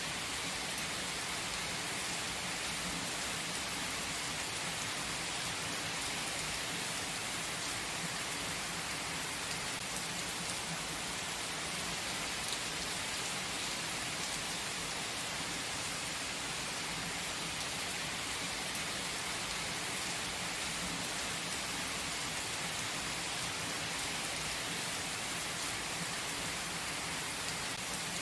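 Steady rain, an even hiss of countless drops that neither builds nor eases.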